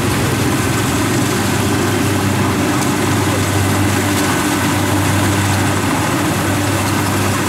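Kubota DC-70 Plus rice combine harvester running steadily as it cuts and threshes, a constant diesel engine drone with a strong low hum.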